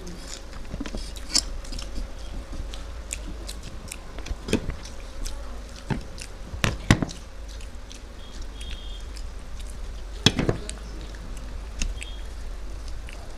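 Close-up eating sounds: chewing and mouth clicks as food is eaten, with a few sharper knocks near the middle and again about ten seconds in, over a steady low hum.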